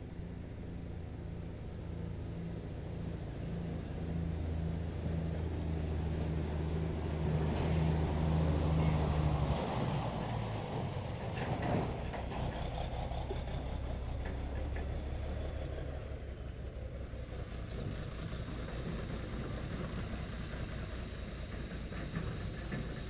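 Diesel truck engine running steadily with a low hum. It grows louder for a few seconds, then drops back suddenly about nine and a half seconds in and runs on more quietly.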